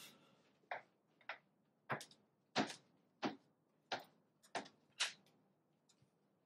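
Footsteps of hard shoes on a floor, about eight steps at an even walking pace that stop about five seconds in.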